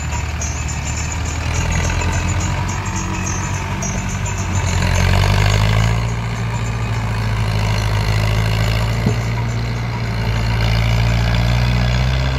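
HMT 5911 tractor's diesel engine working at full power while hauling a trailer loaded with soil. Its steady low note rises and gets louder about five seconds in, then holds high.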